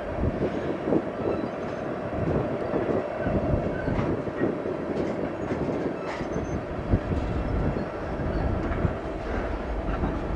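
A Union Pacific freight train's cars rolling past on the rails, a steady rumble with irregular knocks and clatter from the wheels.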